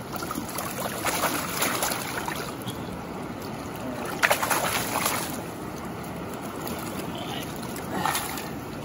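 Atlantic salmon in a rubber-mesh landing net in shallow river water, splashing and sloshing in irregular bursts, the sharpest about four seconds in, over the steady trickle of the stream.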